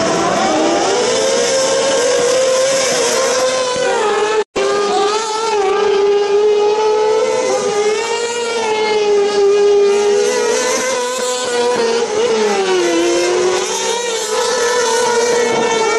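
Kartcross buggies' high-revving motorcycle engines racing on dirt, the engine note climbing and dropping with throttle and gear changes. The sound cuts out for a split second about four and a half seconds in.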